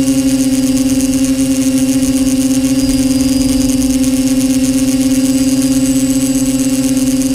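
Multirotor drone's electric motors and propellers running while it hovers: a loud, steady hum held at one even pitch, with a high hiss above it.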